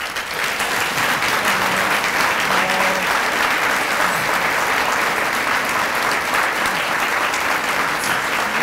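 Audience applauding, the clapping of a roomful of people that breaks out all at once and holds steady.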